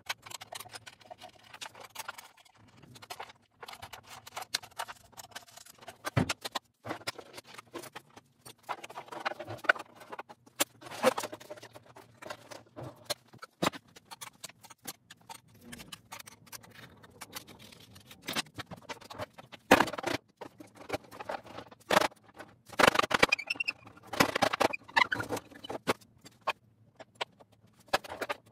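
Irregular knocks, clicks and scrapes from handling tools, hardware and a plywood tool stand, with a few longer scraping stretches.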